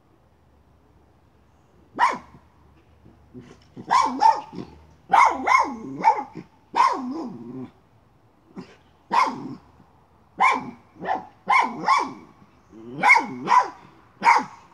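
Miniature schnauzer barking at a chipmunk it is hunting. About fifteen short, sharp barks, some single and some in quick pairs, begin about two seconds in.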